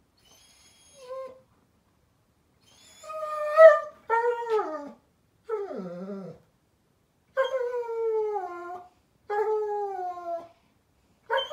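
German Shepherd puppy crying at bedtime: a faint high whimper, then a run of about five drawn-out whining howls, most falling in pitch, one sinking low into a groan.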